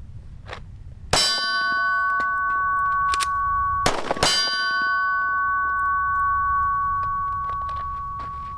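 Pistol shots striking a steel target. A sharp hit about a second in sets the plate ringing with a clear, lingering tone. Two more hits come close together about three seconds later, and the ring fades slowly.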